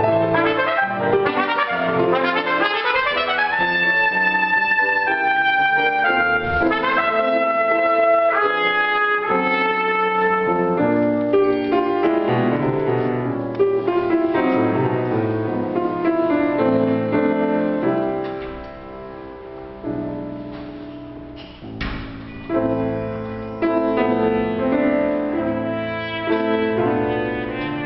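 Trumpet and grand piano playing a classical duo piece. The trumpet holds long notes over the piano for the first half, drops out while the piano goes on more quietly, and comes back in near the end.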